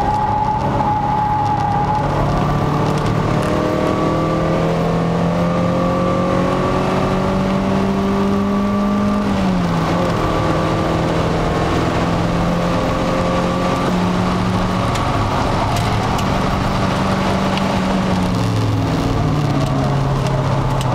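Peugeot 306 XSi's four-cylinder engine under load, heard from inside the car at track speed, its note slowly rising in pitch and dropping sharply twice, about halfway through and near the end, over steady road and wind noise.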